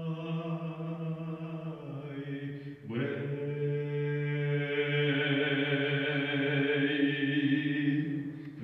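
A man singing into a handheld microphone, holding long sustained notes. One note tails off about two seconds in. A new note begins just before three seconds and is held to the end, growing brighter partway through.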